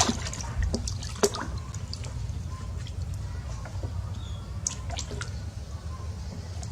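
Water dripping and lightly splashing in a bathtub, a few scattered drops and small splashes over a steady low hum.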